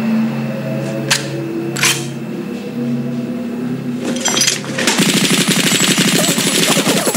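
Low sustained notes of a film score, with two sharp metallic snaps of bolt cutters about one and two seconds in. From about five seconds in, a rapid, continuous burst of automatic gunfire.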